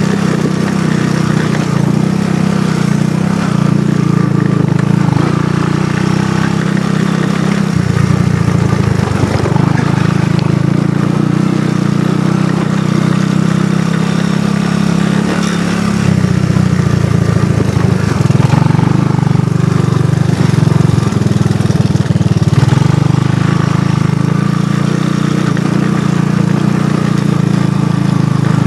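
ATV engine running steadily under way, with its note shifting a couple of times, about 8 and 16 seconds in.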